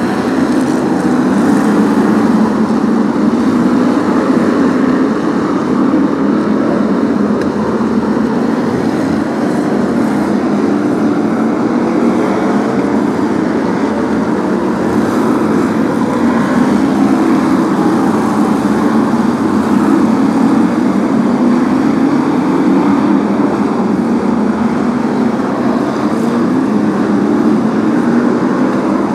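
A pack of V8 stock car engines racing, a loud continuous blend of engines whose pitch rises and falls as the cars accelerate and lift around the oval.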